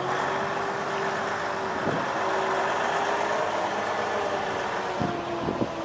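Diesel farm tractor engine idling with a steady hum.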